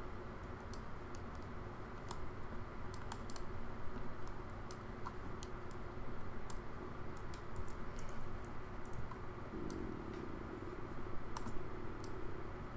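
Irregular clicks of a computer mouse and keyboard, a dozen or so scattered sharp taps with uneven gaps, over a steady low background hum.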